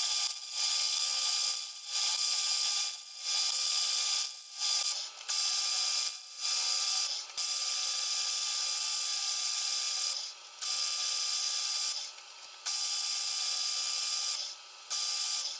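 Metal lathe turning down the end of a steel bolt with a carbide insert tool: a steady high cutting noise that comes in about ten stretches of one to three seconds, split by brief breaks.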